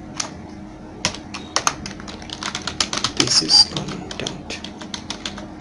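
Typing on a computer keyboard: a run of uneven keystrokes, several a second, with a quicker, louder flurry a little past the middle.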